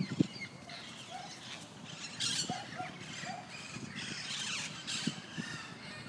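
A flock of wild parrots calling and chattering in a tree, many calls overlapping and growing denser about two seconds in. A couple of low bumps come at the very start.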